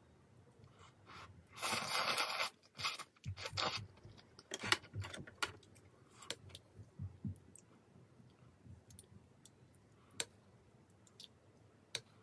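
Ramen noodles being slurped into the mouth in a loud, noisy rush lasting about a second, with a shorter slurp a moment later. Chewing follows, with wet mouth clicks and a few light sharp clicks.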